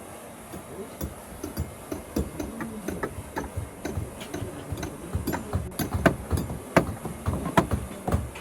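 Hammer blows on timber shuttering: irregular sharp knocks, a few a second, louder in the second half.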